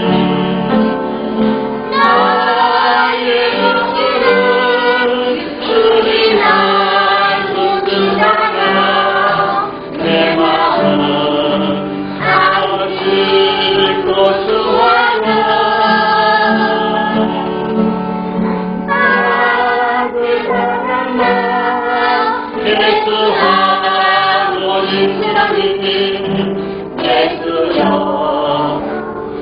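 A group of voices singing a church hymn together, phrase after phrase with short breaths between, over steady held accompanying notes.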